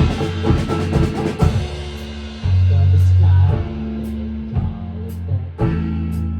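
Live rock band playing an instrumental passage: drum kit with bass drum and snare, electric bass and guitar. A quick run of drum hits in the first second and a half gives way to held bass notes under the guitar.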